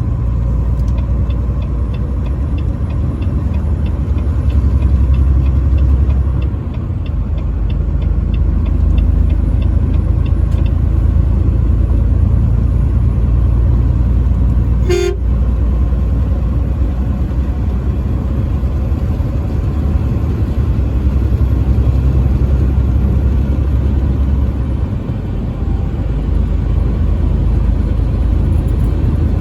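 Steady low rumble of a truck driving on the highway, with a light, even ticking of about three a second for the first ten seconds. About halfway through, the truck horn gives one short toot.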